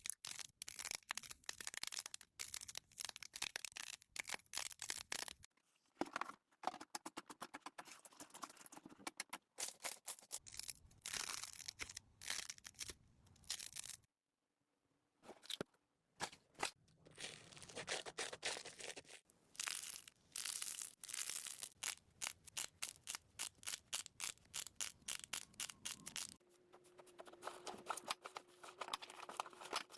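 Slime being worked by hand, giving a dense run of crackling pops and clicks with a short pause about halfway through. A steady low hum comes in near the end.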